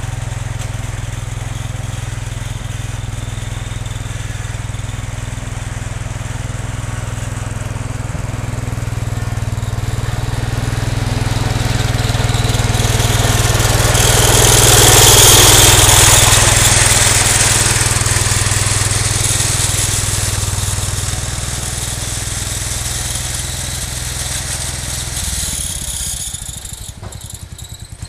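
Cub Cadet 149 garden tractor's engine running under load while plowing snow. It grows louder to a peak about halfway through, with a rushing hiss at its loudest, then fades. Near the end the engine note drops into a slower, pulsing beat.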